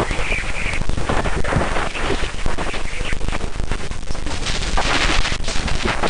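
Sonified space-probe plasma-wave (radio) data from around Jupiter's moon Ganymede: a dense, loud static crackle of rapid, irregular pops.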